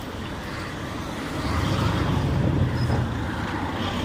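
Road traffic with a car engine that grows louder about a second and a half in, over steady road noise.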